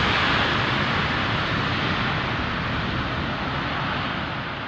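Airliner's jet engines passing, a loud steady rush of noise that slowly fades as the plane moves away.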